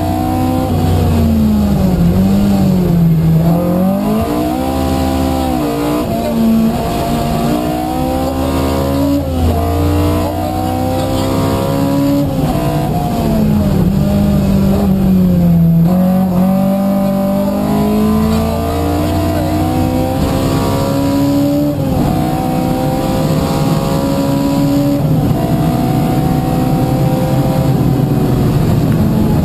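Opel Kadett 2.0E rally car's four-cylinder engine at full effort, heard from inside the cabin. The revs climb and drop again and again as it shifts through the gears and comes off the throttle, with two deeper drops, about three seconds in and about halfway through.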